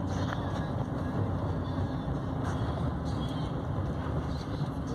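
Steady road noise inside a vehicle's cab while driving on a gravel road: engine and tyres on the gravel.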